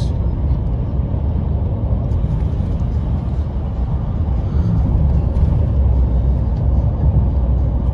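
Steady low road and tyre rumble inside a car's cabin while it drives along a highway.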